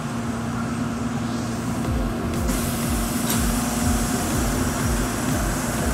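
Inside a subway car drawing to a stop at a station platform: a steady electrical hum over a low rumble, joined about two and a half seconds in by a sudden hiss of air that keeps on, with a short click about a second later.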